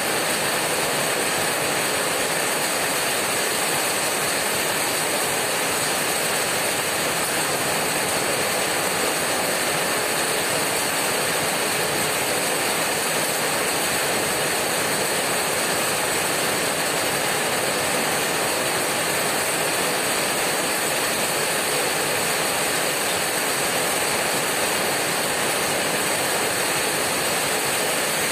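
Heavy rain hammering on a corrugated tin roof: a dense, steady hiss of countless drops on the metal, with no single hits standing out.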